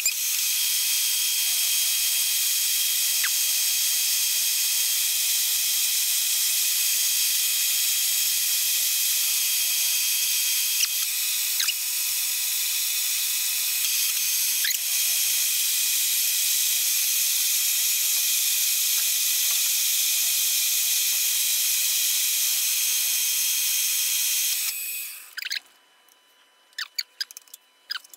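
Milling machine running an end mill through a metal block under flood coolant, a steady high-pitched whine and hiss. It stops about 25 seconds in, followed by a few light clicks and taps.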